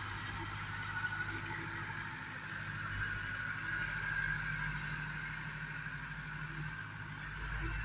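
90-horsepower Same orchard tractor's diesel engine running steadily while tilling soil, its note rising slightly about two seconds in.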